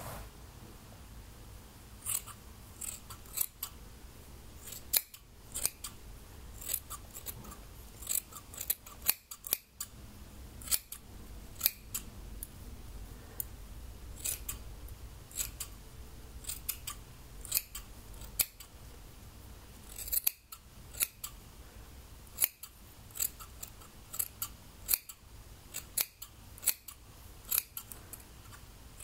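Scissors snipping through wet hair in a long run of sharp, irregular snips, thinning out for a few seconds midway.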